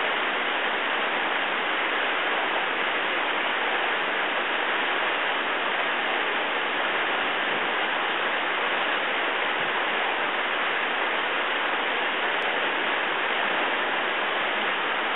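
Zeleni vir waterfall, a drop of about 50 metres, heard close to its base: a steady, unbroken rush of falling water.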